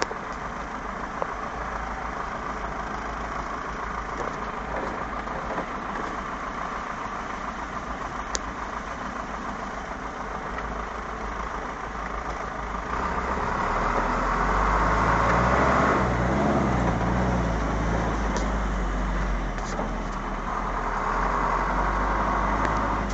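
A vehicle's engine running as it drives slowly along a rough road, with road and wind noise. It gets louder about halfway through as the engine works harder.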